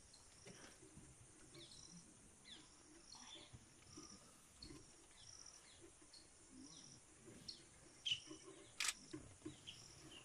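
Faint wild bird calls: short high chirps repeating about every half second, with some down-sliding notes. A sharp click comes about nine seconds in.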